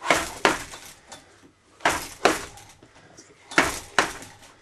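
Gloved punches smacking into a hand-held heavy punching bag: three quick double strikes, two hits close together each time, the pairs coming about every second and a half.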